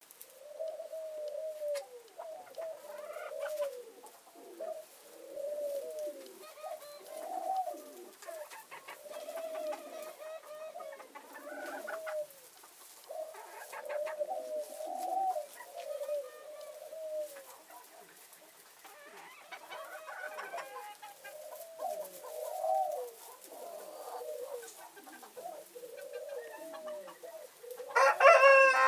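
Mille Fleur bantam chickens making short, arching clucking calls, about one a second, with no let-up. Near the end a much louder drawn-out call breaks in: a bantam rooster starting to crow.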